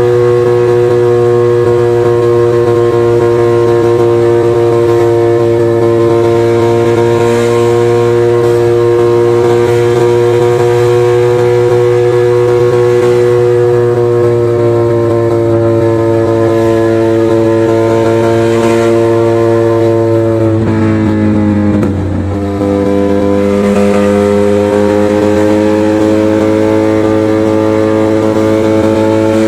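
Motorcycle engine and exhaust running at a steady cruise. Its note eases down slowly, drops briefly about two-thirds of the way through as the throttle is rolled off or a gear is changed, then settles into a steady run again.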